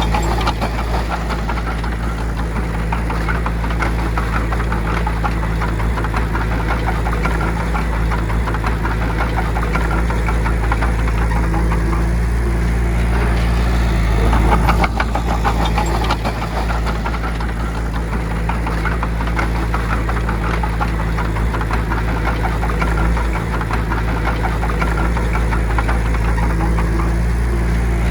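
Heavy diesel earthmoving machine running steadily under work, its engine hum carrying a continuous clatter.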